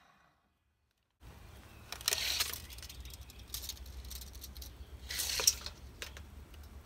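Silence for about the first second, then handling noise: a wooden baluster and a tape measure being moved and set in place, with a scraping rattle about two seconds in, another about five seconds in, and a few light clicks over a low steady hum.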